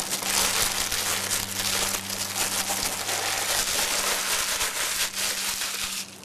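Shiny green foil gift wrap crinkling as a present is unwrapped by hand, a dense continuous rustle that stops just before the end.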